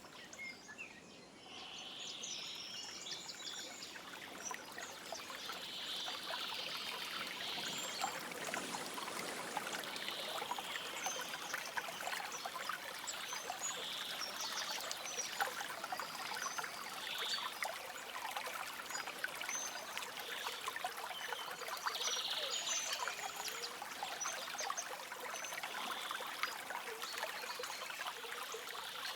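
Stream water trickling and babbling steadily, with small birds chirping on and off above it. The water drops away briefly about a second in, then comes back.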